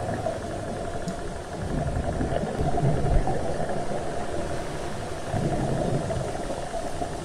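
Muffled underwater noise through a camera housing: a steady low rumble and hiss with soft, uneven low thumps every second or two as the diver swims.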